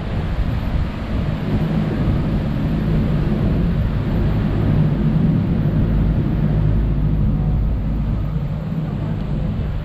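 Sightseeing boat's engine running with a steady low drone, with wind noise on the microphone.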